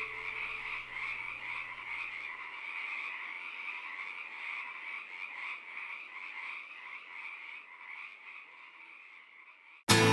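A chorus of many frogs calling at once, a dense overlapping pulsing croak that fades away gradually toward the end.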